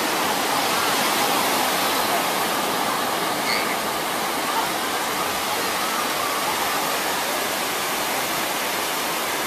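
Ocean surf washing steadily onto a beach, an even rushing noise with no distinct wave crashes.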